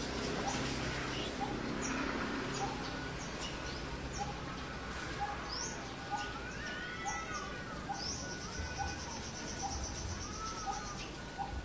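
Wild birds calling: scattered short high chirps over a steady string of short notes about twice a second. A whistled call rises and falls about six seconds in, and a fast trill of about three seconds starts around eight seconds in.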